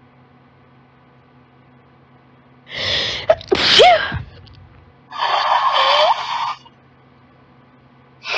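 A young woman with allergies sneezing in a fit: a sharp intake of breath and a loud sneeze about three seconds in, a second sneeze a couple of seconds later, and a third beginning at the very end.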